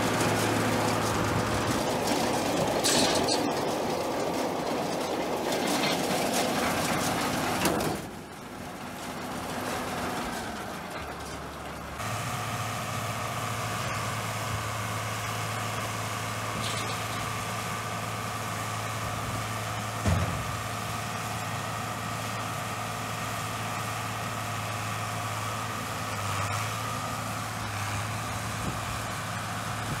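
A John Deere tractor's engine running steadily while it pulls a New Holland round baler, dropping to a quieter stretch about eight seconds in. There is a single thump about twenty seconds in.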